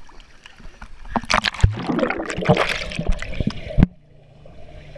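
Pool water splashing and sloshing around a camera held at the surface, the loudest splashing in the middle. Near the end the sound turns suddenly muffled as the camera goes under water.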